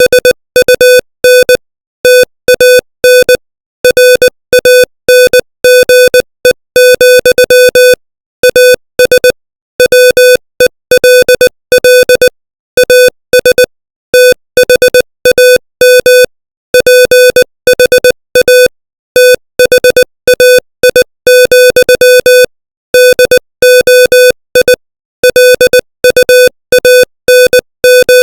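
Morse code sent at 20 words per minute: a single steady-pitched electronic beep keyed on and off in short dots and longer dashes, with short gaps between letters and longer ones between words.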